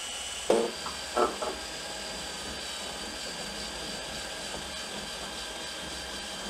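Cordless drill running steadily with a high whine, its bit drawn back and forth along a PVC window frame's gasket channel to clear it out. Two short clatters come about half a second and just over a second in.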